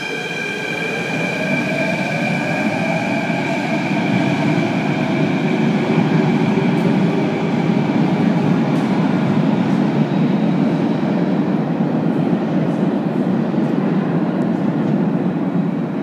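Athens Metro Line 3 train pulling out of an underground station: the traction motors' whine rises in pitch over the first few seconds, then a loud, steady rumble of wheels on rail builds and holds as the train runs off into the tunnel.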